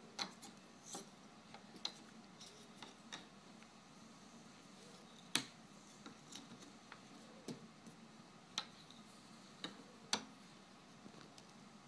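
Jigsaw puzzle pieces being picked up, set down and pushed together on a wooden tabletop by a small child's hands: scattered, irregular light clicks and taps, about a dozen. The sharpest come about five and ten seconds in.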